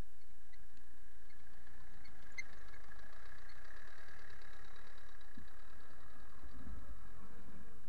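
Mitsubishi Pajero's 4M40 turbo-diesel engine running low and muffled as the vehicle rolls slowly over the camera, the rumble building through the middle, with a couple of dull thumps in the second half.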